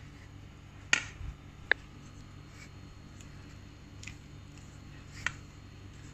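A mixing utensil knocking against a stainless steel bowl while stirring batter: two sharp clicks about a second in, the second with a brief metallic ring, and another near the end, with fainter taps between.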